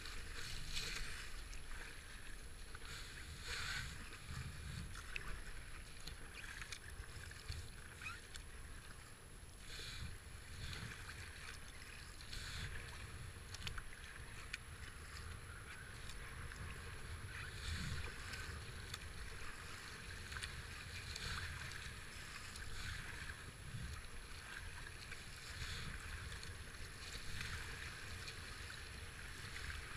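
Rushing whitewater splashing around a kayak running river rapids, with the splash of paddle strokes rising and falling every second or two.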